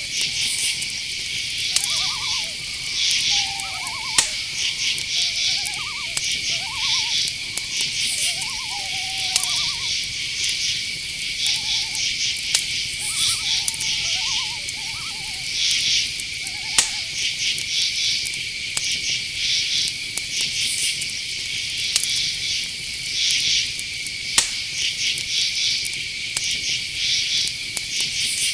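Night forest ambience: crickets and other insects trilling, one steady high trill under a rapid pulsing chirping. Short owl calls repeat and stop about halfway through, and a few sharp clicks stand out.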